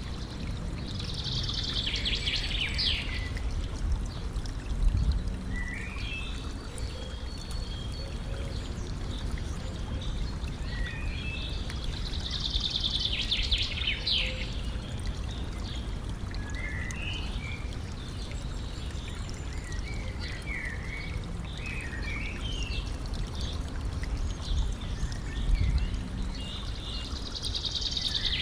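Small stream trickling and gurgling steadily, with a songbird repeating a fast song phrase of about two seconds three times, roughly every twelve seconds, and other short chirps in between. A low thump stands out about five seconds in, and another near the end.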